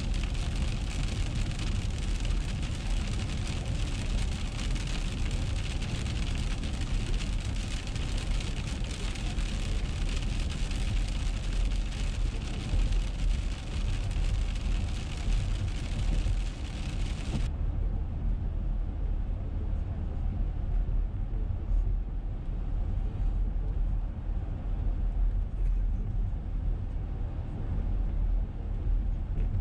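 Car driving on a wet road in the rain, heard from inside the cabin: a steady low rumble of engine and tyres with a hiss of tyre spray and rain over it. The hiss cuts off abruptly about two-thirds of the way through, leaving the low rumble.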